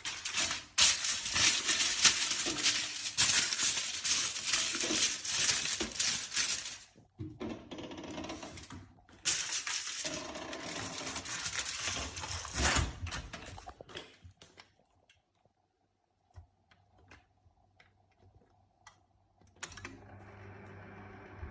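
Microwave oven crackling and sparking in two long bursts of dense snapping clicks, the first about six seconds long and the second about four, then a few stray clicks. A low steady hum starts near the end. The crackle is the fault that appeared after the oven's inner glass was replaced.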